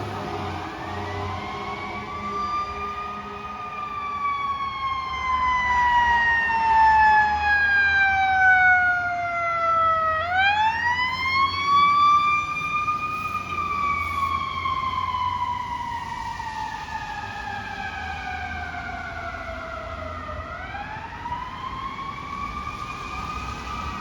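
Fire truck siren wailing in slow cycles: each rises over two or three seconds, then falls slowly over about seven, over the low rumble of the truck's engine. The siren is loudest in the middle.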